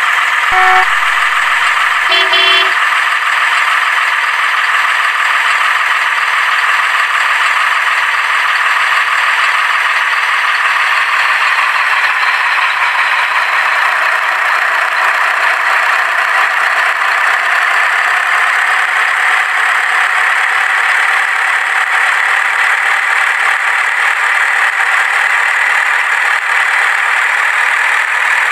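A truck horn sound effect toots twice near the start, over a steady, loud drone like a truck engine that drifts slowly in pitch.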